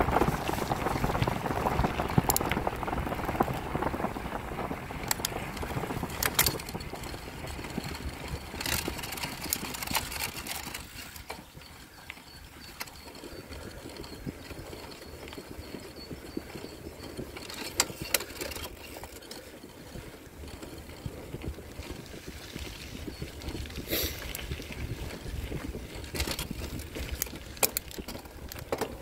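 Bicycle tyres rolling over a gravel forest track, a steady rumble of tyre noise with scattered clicks and rattles from stones and the bike's parts. The rumble is louder for the first ten seconds or so and softer after that, with a faint high whine through the middle stretch.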